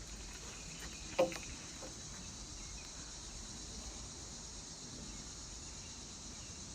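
A steady high-pitched drone from a chorus of insects such as crickets in woodland, over a low rumble. A single short sound stands out about a second in.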